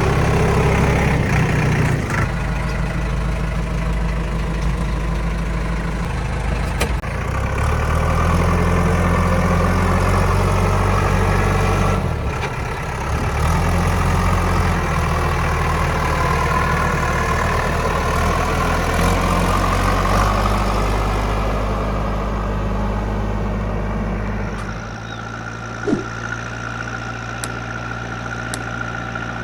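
Kirloskar diesel engine of a JCB backhoe loader working, its revs and a whine rising and falling under changing load. About 25 seconds in it settles to a lower, steadier idle, with a few short knocks after that.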